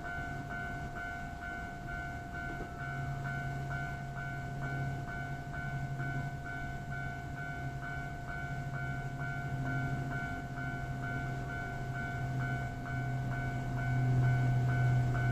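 Railway level-crossing warning bell ringing steadily, about two rings a second, over a train's low rumble that swells near the end as the train draws closer.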